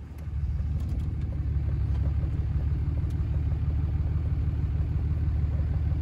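Pickup truck engine running with a steady low rumble, heard from inside the cab with the window down.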